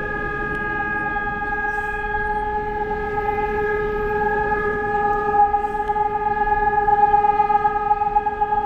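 Air-raid siren holding one steady tone, swelling a little louder over the last few seconds.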